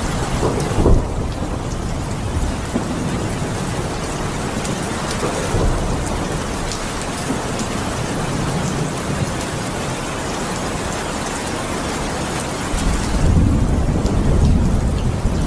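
Steady rain falling, with thunder: a short loud clap about a second in and a long low rolling rumble building near the end.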